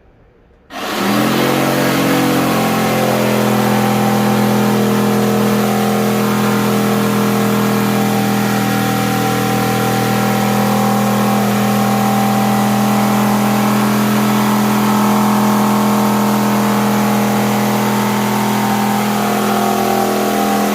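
Electric power saw starting up, its motor rising briefly in pitch, then running steadily at speed while cutting a wooden board, and stopping abruptly at the end.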